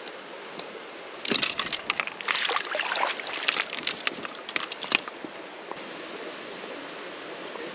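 Steady sound of a flowing creek. About a second in, a loud spell of sharp crackling and clicking starts and runs for about four seconds, then stops.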